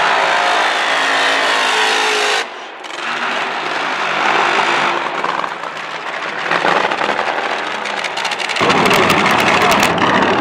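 Nitro-burning Funny Car engines, supercharged V8s, running at full throttle during burnouts. The first engine's sound cuts off suddenly about two and a half seconds in and a second engine takes over. A harsher, broader engine noise comes in near the end.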